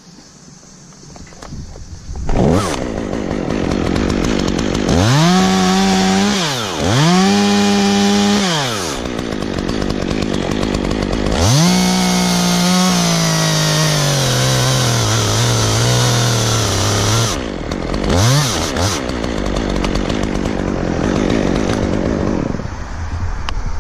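Two-stroke chainsaw comes up loud about two seconds in and is revved twice. It is then held at full throttle in a long cut, its pitch slowly sinking as the chain loads up in the wood. After that it drops back, gets one short blip of the throttle, and runs at a low idle.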